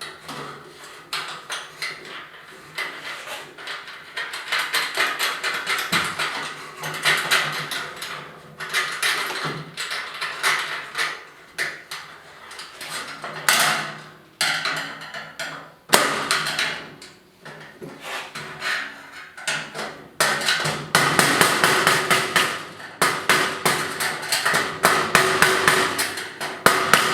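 A hammer tapping on the end of a screwdriver, a long run of sharp metallic strikes with a faint ring. The blows become quicker and more even over the last six seconds or so.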